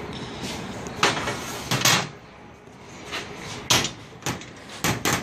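Irregular sharp knocks and clanks, about half a dozen, as a metal level and hand tools are handled and set down on a large flat sheet of sheet metal.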